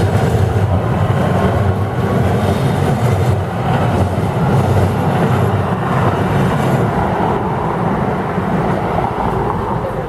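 Los Angeles Metro light rail train passing at street level: a steady loud rumble of wheels on rails and running gear, mixed with city street noise.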